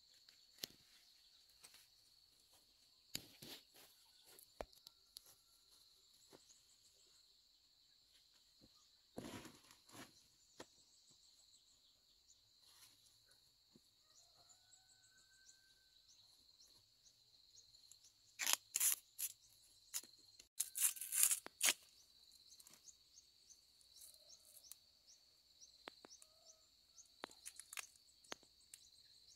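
Scattered crisp rustling and snapping of leafy vegetable stems and a woven plastic sack being handled, loudest in two clusters about two-thirds of the way through. A steady high drone and a few faint bird chirps sit underneath.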